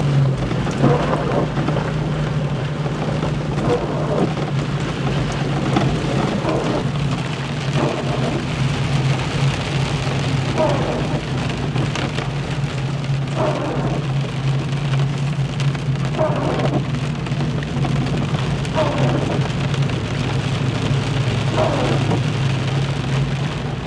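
Heavy rain falling on a vehicle as it drives slowly in low gear, the engine humming steadily underneath. A short squeak recurs every two to three seconds.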